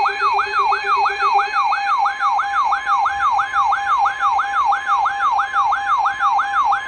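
Electronic emergency alert tone: a siren-like sweep falling in pitch, repeated about three times a second over a steady tone, with a low pulsing tone underneath for the first second and a half.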